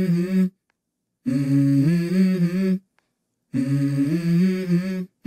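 Music track intro: a hummed vocal melody, each phrase lasting about a second and a half and repeated about every two seconds, with short dead silences between the phrases.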